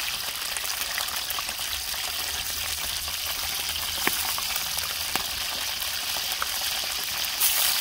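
Chicken sausages deep-frying in hot oil in a wok: a steady sizzle with a few sharp pops.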